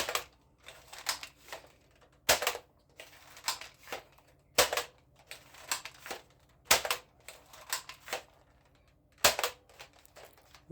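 Hard plastic toy guns being handled, clicking and clacking irregularly, with a louder knock about every two seconds.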